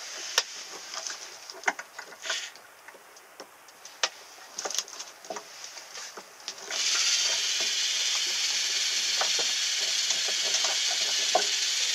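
Scattered light clicks and taps, then a steady hiss that starts suddenly about two-thirds of the way in and keeps going.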